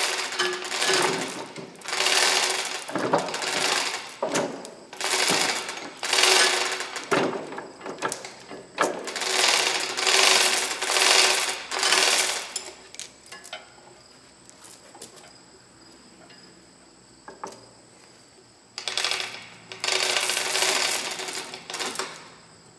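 Manual chain hoist worked by hand: the hand chain is pulled in repeated strokes, about one a second, with the chain rattling and the hoist's ratchet clicking. It stops for several seconds, then resumes near the end.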